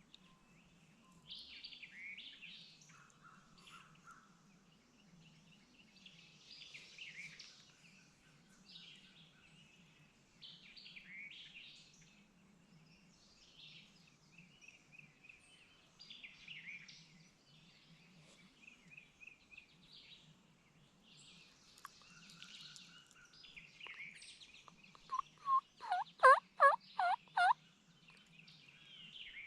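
Songbirds sing throughout, then near the end comes a run of about eight loud turkey yelps, roughly three a second, each note falling in pitch. It is the hen-yelp sequence used to call in a tom.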